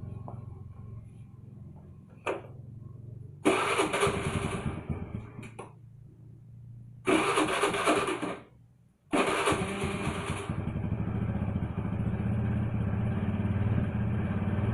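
Engine, likely a motorcycle's, running at idle and revved in three short bursts, then settling into a steady idle.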